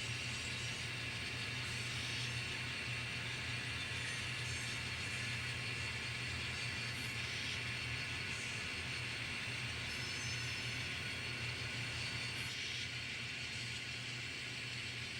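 N scale model train running steadily along the track: a continuous hum and rolling noise, easing off slightly near the end.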